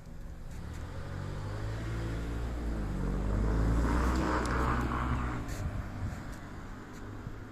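A motor vehicle passing by: its engine note rises and falls in pitch as it comes closer and goes away, loudest about four seconds in.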